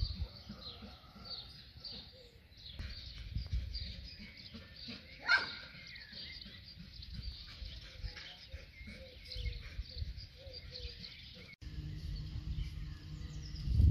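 Small birds chirping and twittering throughout, with an uneven low rumble of wind on the microphone underneath. A steady low hum comes in near the end.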